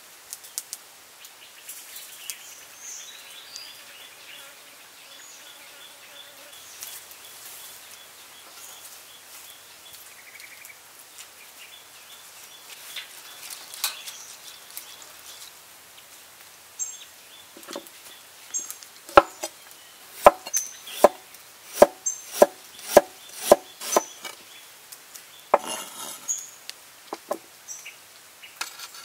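A knife chopping on a wooden board: a run of about eight sharp chops over some four seconds, starting about two-thirds of the way in, followed by a few lighter knocks.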